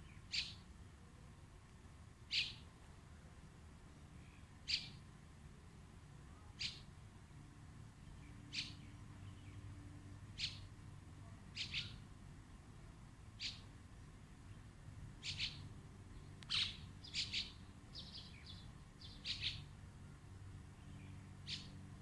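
Common mynas calling: single short, high calls about every two seconds, coming faster in a quick run of several calls late on.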